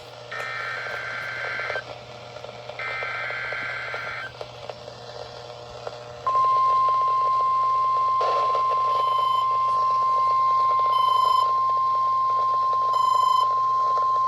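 NOAA Weather Radio test broadcast heard through a weather radio receiver. It opens with two warbling bursts of SAME digital header data. After a short gap of static hiss, the steady 1050 Hz warning alarm tone comes on about six seconds in and holds unbroken.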